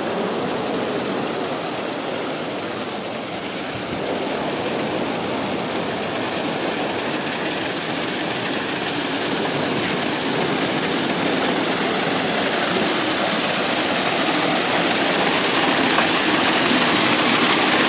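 Small waterfall spilling down a rock face onto the beach: a steady rushing hiss that grows gradually louder as it is approached.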